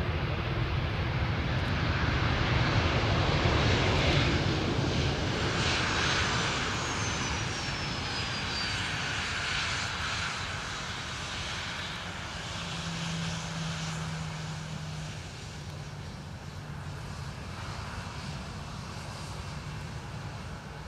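Boeing P-8A Poseidon's two CFM56 turbofan jet engines rushing during its landing roll-out. The noise is loudest a few seconds in, then slowly fades as the aircraft slows and rolls past.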